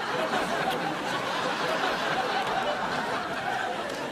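Sitcom studio audience laughing, many voices together at a steady level.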